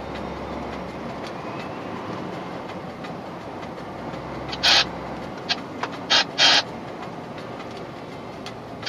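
Steady rumble of a truck's engine and tyres heard inside the cab while driving. A few short, loud hissing bursts come a little past the middle.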